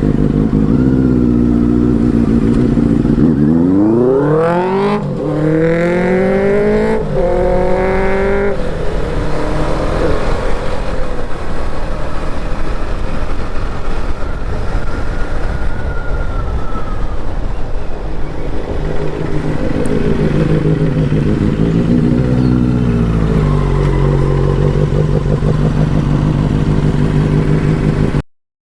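Benelli 600i motorcycle's inline-four engine accelerating hard, its pitch climbing steeply and dropping back at each upshift, then running steadily before revving up and easing off again. The sound cuts off suddenly just before the end.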